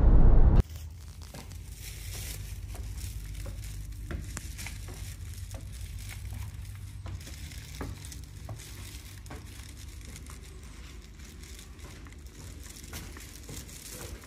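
Car cabin noise that cuts off about half a second in. Then light crinkling and scattered clicks over a low steady hum: handling noise from a shopping bag and phone carried along a wooden breezeway.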